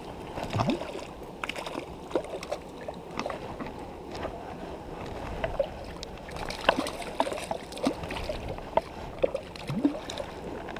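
Small rocky stream rushing and gurgling over stones, with irregular close knocks, clicks and rustles of clothing and gear as the wearer moves about on the rocks.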